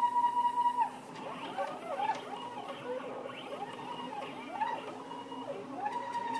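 Stepper motors of a hobby CNC router whining as the machine traces a part outline. The pitch holds steady for about the first second, then runs in quick rising and falling sweeps as the moves speed up, slow down and change direction.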